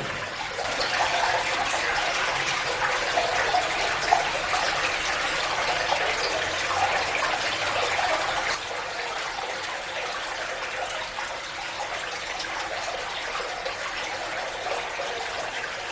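Water running steadily in a tunnel, a continuous rushing hiss that drops a little in level about eight and a half seconds in.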